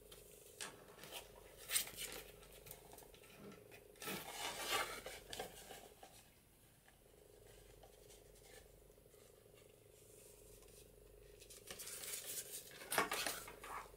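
Thread drawn through holes in a paper signature and journal cover, with paper rustling and scraping in a few short bursts: one about four seconds in, another near the end, and quieter handling between.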